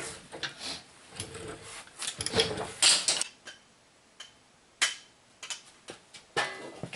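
Hand tools clinking and clicking on metal, with short irregular bursts of ratchet-like clicking, as the hub assembly's mounting bolts are run in. The busiest clatter comes a little before the middle.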